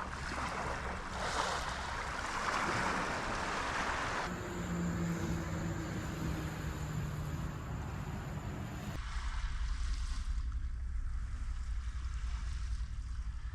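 Seaside ambience in three cut-together shots. First comes a steady wash of surf and wind. About four seconds in it cuts to a steady low hum, and about nine seconds in it cuts to a low wind rumble on the microphone.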